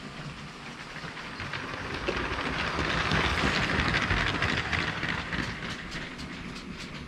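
Lego train running past close by on plastic track, a rattling clatter of its wheels that swells to its loudest about three to four seconds in and then fades, ending in a string of sharp clicks.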